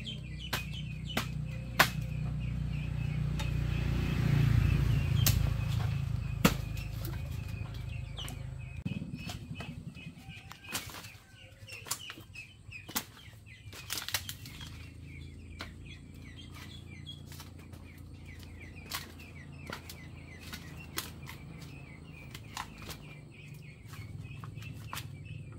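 Rustling of leaves and branches with scattered sharp knocks, snaps and crackles of dry bamboo sticks as jackfruits are handled, over faint bird chirping. A low rumble fills the first third and then fades.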